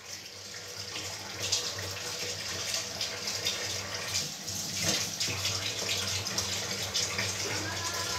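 Kitchen tap running into a stainless steel sink while dishes are washed by hand, with many small clinks and taps of crockery over the steady flow of water.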